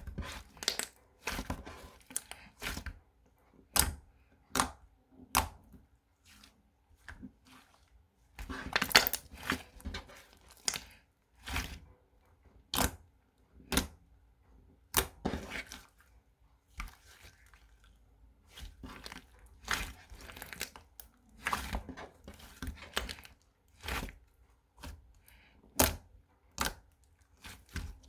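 Crinkly wrapping being handled, torn and crumpled close to the microphone: a long run of irregular sharp crackles and clicks.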